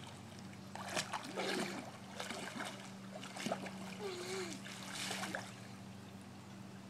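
Swim fins kicking at the surface of a pool, splashing water in irregular bursts, over a steady low hum.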